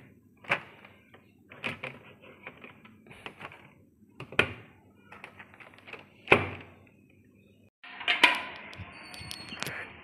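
Scattered knocks and clicks of handling, the sharpest about six seconds in, followed near the end by a rustling hiss.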